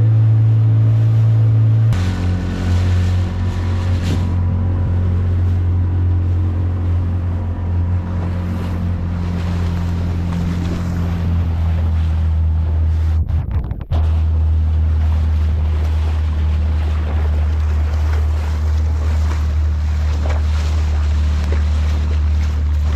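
A fishing boat's motor running steadily at sea, with wind and water noise. The motor's pitch shifts about two seconds in, and the sound cuts out briefly near the middle.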